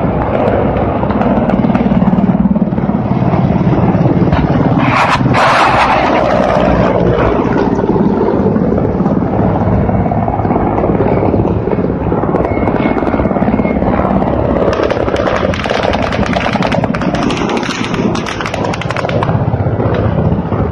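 Low-flying Mi-8 twin-turbine transport helicopters passing, a loud continuous rapid rotor chop. It gets denser and louder from about fifteen seconds in, with a sharp burst about five seconds in.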